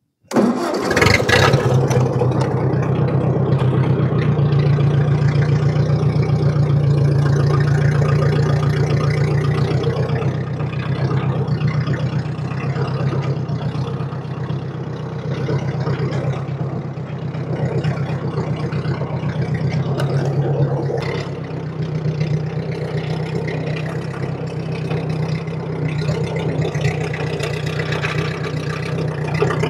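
Ford 8N tractor's four-cylinder flathead engine running steadily at low speed as the tractor drives across grass towing a small loaded trailer.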